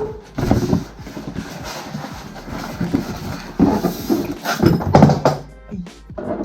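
Cardboard box being opened and its packaging handled: irregular rustling, scraping and knocks.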